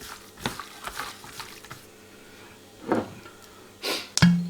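Hands mixing tandoori masala marinade into raw boneless chicken pieces in a bowl: a few short, wet squelching sounds with pauses between them.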